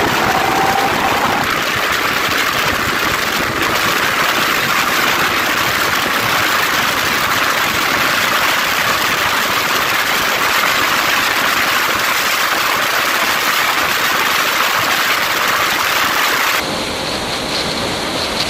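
Heavy wind noise rushing over the microphone of a motorcycle-mounted camera at high speed, a steady hiss that all but drowns out the engine. Near the end the noise drops slightly and changes sound suddenly.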